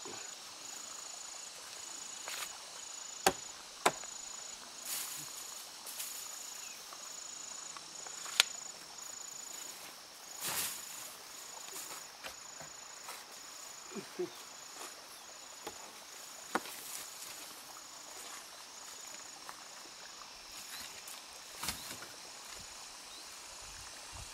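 An insect chirring in a steady, even pulsing rhythm, with a few sharp knocks over it, the loudest three about 3, 4 and 8 seconds in.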